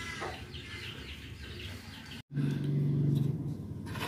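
Birds chirping in the background. About two seconds in the sound cuts out briefly, and then a loud, steady low hum lasts for about a second.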